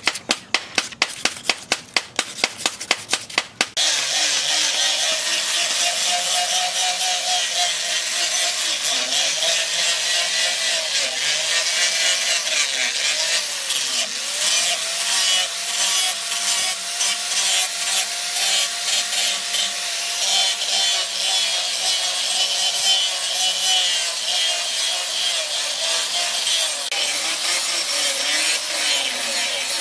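Sandpaper rubbed by hand on a wooden knife handle in rapid strokes, about three or four a second. About four seconds in, an electric angle grinder with a sanding disc takes over, grinding the flat of a steel cleaver blade. It runs steadily, its pitch dipping and recovering again and again.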